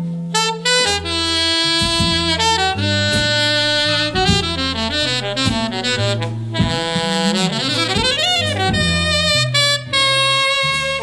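Jazz instrumental with a saxophone playing the lead melody over a stepping bass line, sweeping upward in a rising run about eight seconds in.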